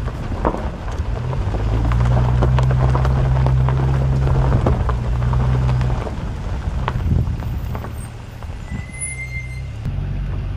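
A motor vehicle's engine running, its note rising about a second and a half in and easing off around six seconds, with rattling knocks throughout and a brief squeal near the end.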